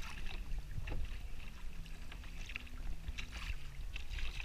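Kayak paddle blades dipping and splashing water alongside an inflatable kayak, a few splashes about a second apart over a steady low rumble.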